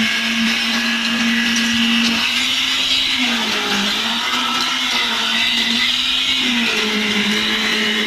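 Concrete poker vibrator's motor running with a steady, loud hum, its pitch sagging slightly from about two seconds in and picking back up near the end.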